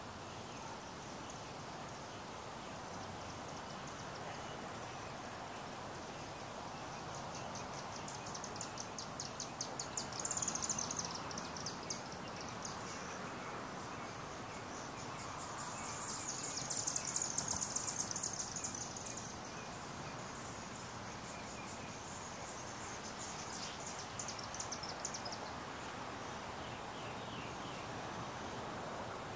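Outdoor evening ambience: a steady hiss of background noise with a high-pitched, rapid trill that comes and goes in runs of a few seconds, loudest about ten seconds in and again around sixteen to eighteen seconds in.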